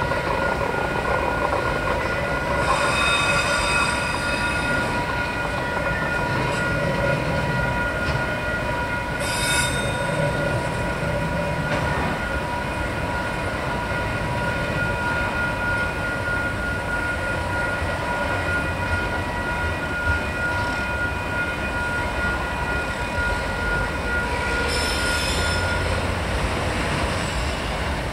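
Container freight train wagons rolling past on a curve, with a steady, high-pitched wheel squeal over a low rumble. Sharper squeals come about three seconds in, about nine seconds in and near the end, and the squeal fades as the last wagons pass.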